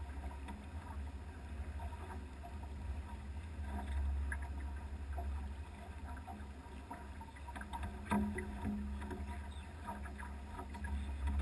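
Pearson Triton sailboat under sail: a steady low rumble of wind on the microphone with water washing along the hull, and scattered small knocks and splashes, a slightly louder knock about eight seconds in.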